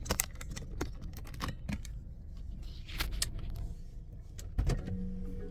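A series of irregular clicks and knocks over a low rumble, with a heavier thump near the end.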